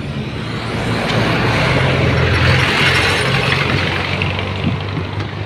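A motor vehicle's engine running with a low hum and a hiss. It grows louder about a second in and eases off again near the end.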